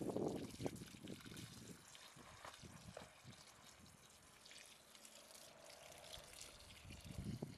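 Water from a garden hose splashing and trickling onto gravel and soil and over a cucumber held under the stream, louder for the first second or so, then a quieter steady trickle.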